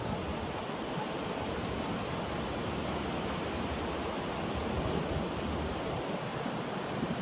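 Steady rushing hiss of wind through the trees, with a fluttering low rumble on the microphone and no distinct calls or knocks.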